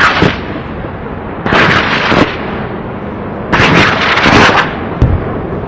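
Loud rumbling noise that swells into three long bursts about two seconds apart, with a deep thump near the end, like explosions or cannon fire.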